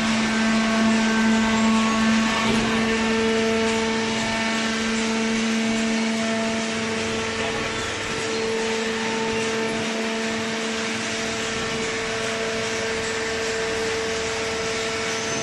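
Hydraulic horizontal cardboard baler running: a steady machine hum with two constant whining tones over an even mechanical noise.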